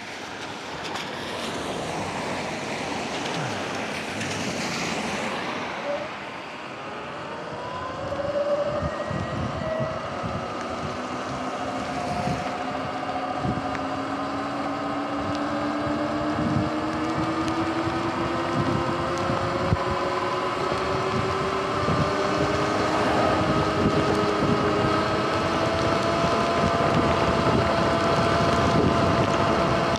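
Sur-Ron electric dirt bike pulling away and riding: a whine from the electric motor and drivetrain rising slowly in pitch as the bike gathers speed. Tyres hiss on the wet road and wind buffets the microphone, growing louder with speed.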